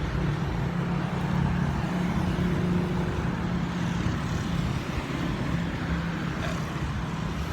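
Steady low rumble of background noise with a faint steady hum.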